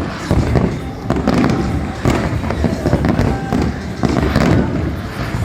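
Aerial fireworks bursting in a steady run of deep booms, roughly one a second, with crowd voices underneath.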